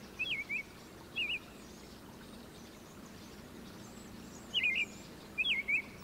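Small songbird chirping: quick high chirps in little groups of two or three, a few in the first second and a half and more near the end.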